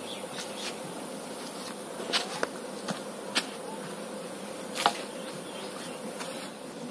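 Insects buzzing steadily, with a thin high-pitched whine above the buzz. A few sharp brief clicks and rustles come through, about two, three and a half and five seconds in.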